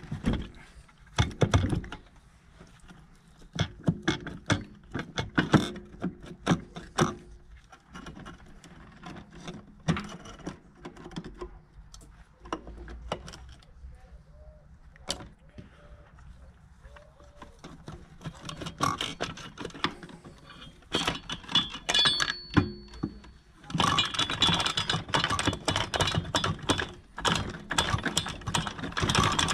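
Metal engine parts and hand tools clinking and clanking as a motorcycle engine is taken apart. Near the end there is a stretch of rapid metallic ticking.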